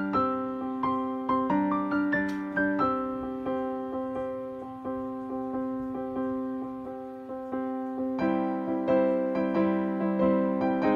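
Background piano music: sustained chords with single notes struck and fading in a slow, even rhythm, growing fuller about eight seconds in.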